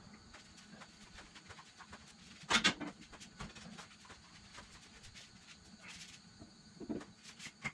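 Quiet workshop with a single sharp knock about two and a half seconds in and a smaller knock near the end.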